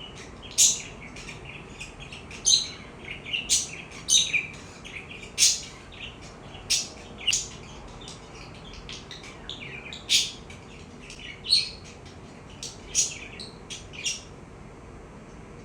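Budgerigar chirping: short, high chirps at irregular intervals. The chirping pauses for the last second or so.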